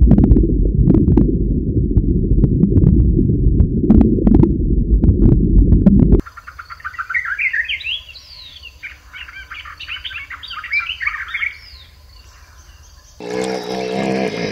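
Underwater reef ambience: a dense low rumble with scattered sharp clicks, cutting off about six seconds in. Small birds then chirp in quick rising trills for about seven seconds, and near the end a hippo's low, wavering call starts.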